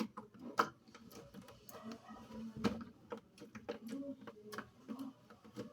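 Slime being squeezed and worked by hand, giving irregular small clicks and pops.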